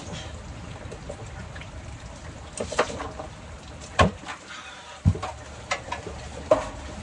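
Steady rain falling, with about five sharp knocks or clanks scattered through the second half.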